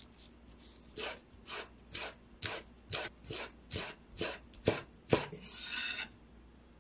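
Chef's knife slicing rolled kohlrabi leaves into thin strips on a wooden cutting board: about ten cuts at roughly two a second, each a short knock of the blade on the wood. Near the end the blade scrapes flat along the board as it scoops up the shreds.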